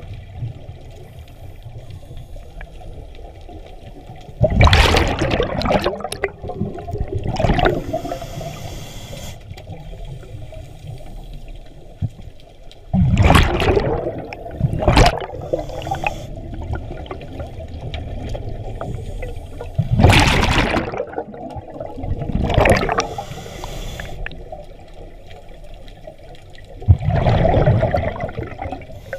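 Scuba regulator exhaust heard underwater: loud bursts of exhaled bubbles rushing out every few seconds, over a steady low underwater rumble.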